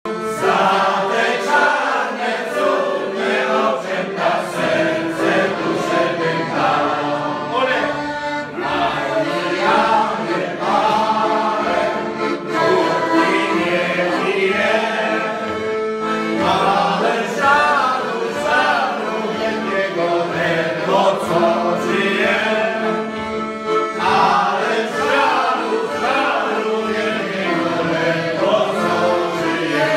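Piano accordion playing a tune while a group of people sing along.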